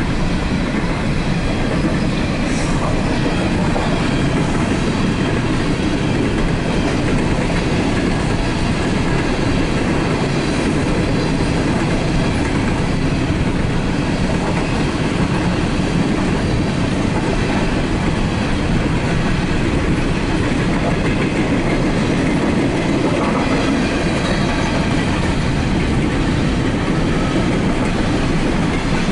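Empty coal hopper cars of a CSX freight train rolling past at a grade crossing, a steady rumble with wheels clattering over the rail joints.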